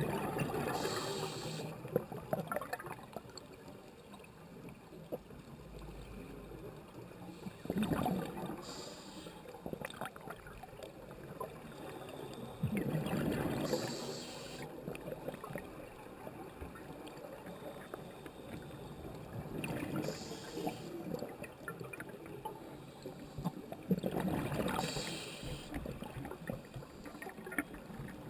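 Scuba diver breathing through a regulator underwater: bursts of bubbles gurgling out on each exhale, about every five to six seconds, with a steady muffled underwater hiss between breaths.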